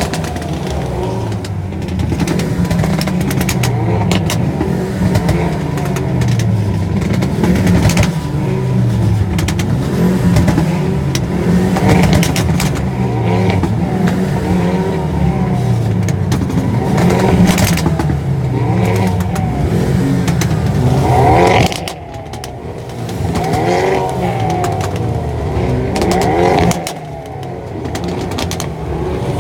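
Dozens of Hyundai Veloster N hatchbacks revving their turbocharged 2.0-litre four-cylinder engines together. Each rev falls away with crackling exhaust pops and bangs on the overrun, and the overlapping revs rise and drop over and over. There are two short lulls in the last third.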